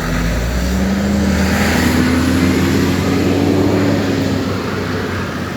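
A car engine running close by, its pitch rising a little and loudest about halfway through, then easing off.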